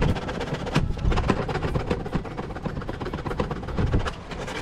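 Hand scraping and sanding along the edge of a Milwaukee PACKOUT chest's plastic tray: a quick run of dry, scratchy strokes.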